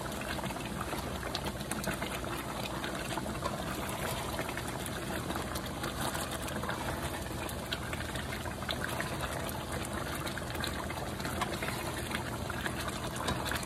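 Thick brown sauce with beef chunks simmering in a frying pan, a steady bubbling and popping with fine crackles, with a slotted spoon stirring through it now and then. The sauce is reducing and thickening, and the bubbles sound thick.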